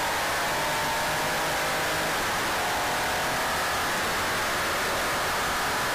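In-cabin sound of a 1984 Porsche 911's air-cooled flat-six engine under power, heard through an overloaded camera microphone as a steady, distorted hiss with faint engine tones under it.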